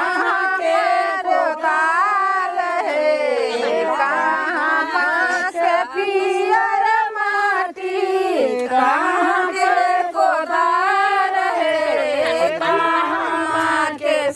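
A group of women singing a traditional wedding folk song together, unaccompanied, in high voices with long, sliding, melismatic lines.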